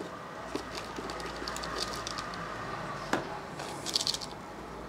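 Potting soil rustling and crumbling as a plant's bare roots are handled over a plastic tub, with scattered small crackles. There is a sharp tap about three seconds in and a burst of crackling near the end.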